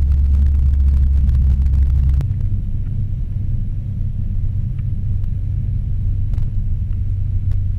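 Rotax 912iS four-cylinder flat engine and propeller of a Sling 2 light-sport airplane running at taxi power, heard from inside the cockpit as a steady low drone. It drops a little lower and quieter about two seconds in.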